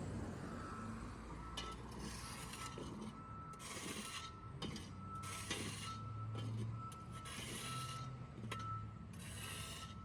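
Construction machine's diesel engine running with a low hum, its reversing alarm beeping steadily in a single high tone about one and a half times a second, with clanking and scraping from the machine working the ground.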